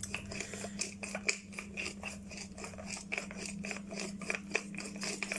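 Wooden pepper mill twisted by hand, grinding black peppercorns: a continuous run of small crunching clicks.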